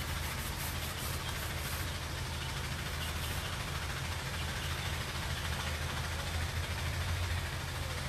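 Steady low hum of a running engine or motor, even throughout, under a faint background hiss.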